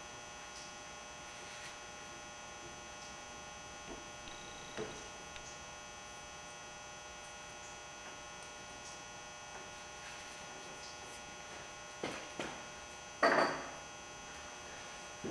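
Steady electrical mains hum, with a few faint clicks of hand tools working on the plow pump's motor bolts and a louder knock near the end.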